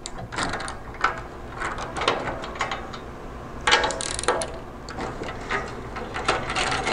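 Hand ratchet clicking in short, uneven runs as a nut is turned on a steel bolt, with metal clinks and a louder clatter about four seconds in.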